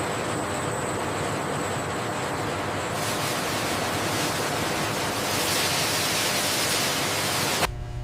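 Steady rushing hiss with no rhythm or pitch. It grows brighter and fuller about three seconds in, a little louder again later, and cuts off suddenly near the end.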